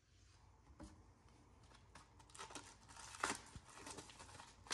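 Faint crinkling and a few light clicks from handling a reverse osmosis filter cartridge and its plastic wrapping. It starts about two seconds in, with one sharper click a little later.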